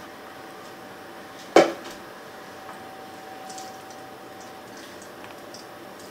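A stainless steel mixing bowl set down on the counter with one sharp clank about a second and a half in, followed by faint light clicks of dishes being handled.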